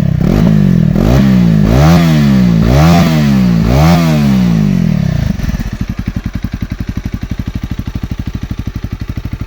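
Honda CRF300L's single-cylinder four-stroke engine being blipped, revving up and dropping back about once a second, four or five times. A little past halfway it settles back to a steady idle with evenly spaced pulses.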